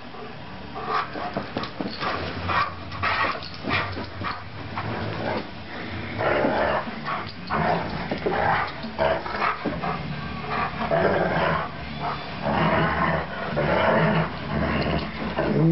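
Alaskan Malamute vocalizing in rough play, giving repeated growls and yips in short bursts while wrestling with a person, with scuffling over the first few seconds.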